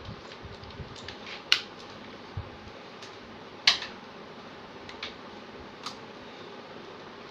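Scattered light clicks and knocks of computer hardware being handled, with two sharper clicks about one and a half and three and a half seconds in, over a steady hiss.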